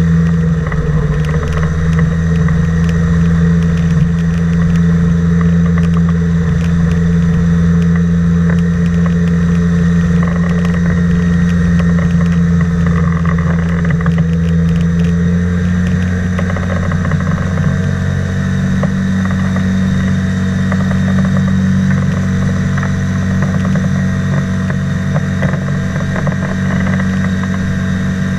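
An engine running steadily with a deep, even hum; its pitch rises a little about two-thirds of the way through.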